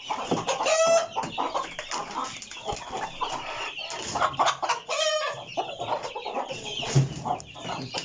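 Aseel chickens clucking, with two short squawks about a second in and about five seconds in, over the rustling and knocking of a hen being lifted out of a wooden cage and handled.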